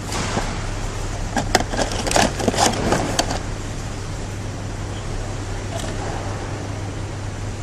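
A quick series of sharp clicks and knocks from hand tools and metal parts as a new engine speed sensor is fitted, stopping a little over three seconds in, over a steady low hum.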